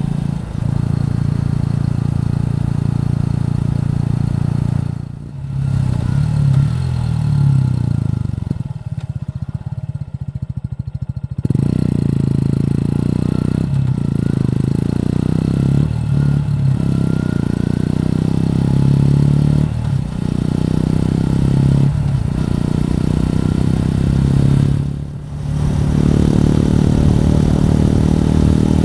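Suzuki Gixxer 150's single-cylinder engine running on the road, its note climbing under throttle and dropping briefly at gear changes about five seconds in and again near the end. A few seconds in the middle, around the tenth second, are quieter and lower with the throttle eased off.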